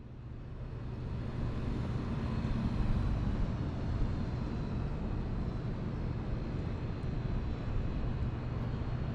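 A steady low rumble of outdoor background noise, fading in over the first second or so.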